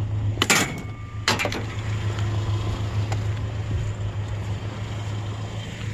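Vehicle engine running with a steady low hum, with two short knocks about half a second and just over a second in.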